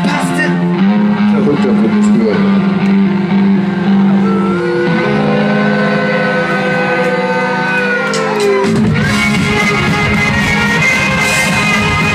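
Live band music with electric guitar: held chords with a sliding lead line over them, changing to a busier, fuller section about nine seconds in.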